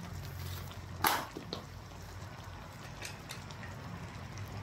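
Pork-meatball and potato soup simmering in a wok on a butane camping stove, the burner running steadily underneath. A single sharp clink about a second in, and a few lighter ticks around three seconds.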